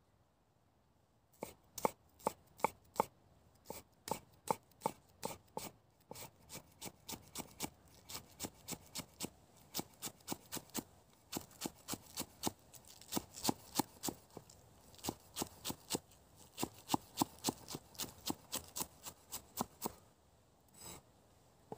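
A cleaver chopping spring onions on a wooden cutting board: a steady run of sharp knocks, about three a second, starting about a second and a half in and stopping shortly before the end.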